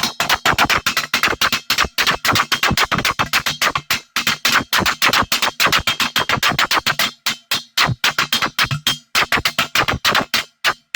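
A fast, even string of short synthesized electronic sounds, about seven a second, with a few brief breaks near the end.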